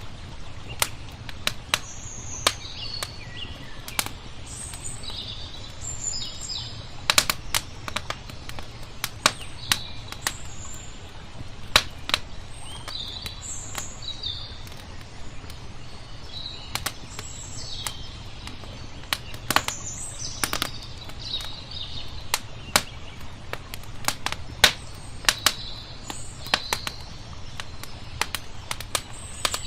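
Wood fire crackling, with sharp irregular pops every second or so, mixed with small birds chirping in short high calls and a steady low rumble underneath.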